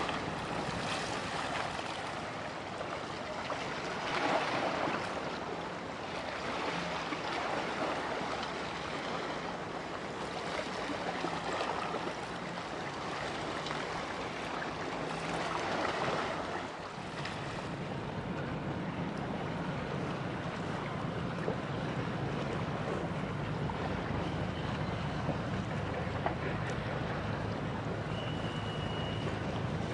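Harbour tugboat passing close by: rushing water and wind noise that swell several times, then a steady low engine drone through the second half. A short high tone sounds near the end.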